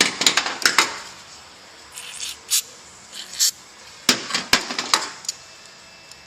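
Sharp clicks, taps and clatter of hand tools and hard parts being handled during a car-seat repair, in three short bursts.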